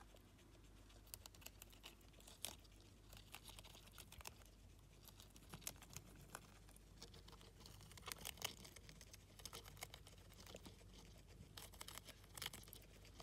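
Two guinea pigs nibbling and tearing at a lettuce leaf: faint, irregular crunchy clicks and leaf crinkling, busier about eight seconds in and again near the end.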